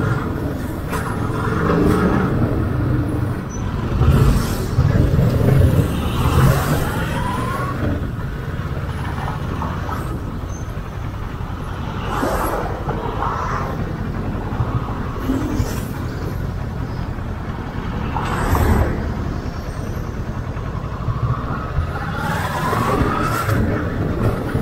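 Kawasaki ER-6n's 650 cc parallel-twin engine running as the motorcycle rides through slow city traffic. The engine note rises in pitch twice, and there are several short louder swells over a steady low rumble.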